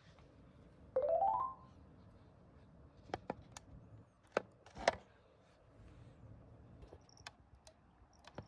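A quick rising run of chime-like notes, an edited-in sound effect, about a second in. It is followed by a handful of sharp clicks and taps, the loudest near the middle.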